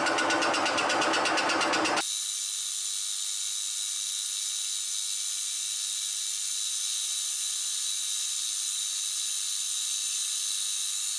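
Deckel FP1 milling machine in horizontal setup cutting cast iron with an arbor-mounted cutter: a rapid, even cutting rhythm over a low hum, which about two seconds in changes abruptly to a steady high-pitched whine and hiss.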